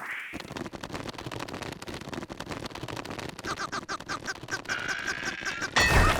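Cartoon sound effects: a fast run of scratchy clicks, joined about halfway by a quick series of high squeaky chirps, ending in a loud hit.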